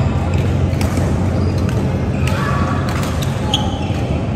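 Badminton rally: several sharp racket-on-shuttlecock hits about a second apart, with short squeaks of court shoes on the mat, over a steady low hum of the hall.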